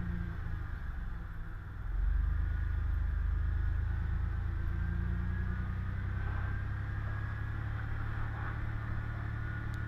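1995 Chevy S-10 pickup's engine running under way, with road noise, heard from inside the cab. It eases off briefly about a second and a half in, then comes back louder from about two seconds in and holds steady.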